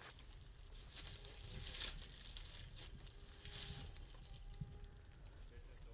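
A golden lion tamarin moving inside a wire-mesh tomahawk trap: soft rustling and patter. Several short, high-pitched chirps come from about four seconds in.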